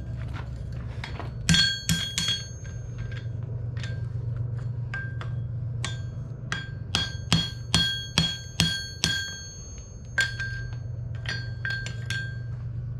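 Hammer blows on a hot horseshoe over an anvil, each strike ringing. A few blows come early, then a steady run of about six strikes around the middle, and more near the end, over a steady low hum.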